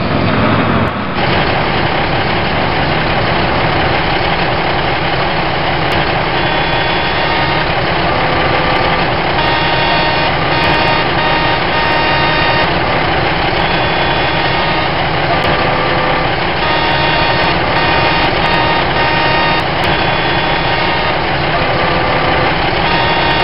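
A truck engine running steadily with a dense rumble. From about six seconds in, a faint melody of short high notes plays over it on and off.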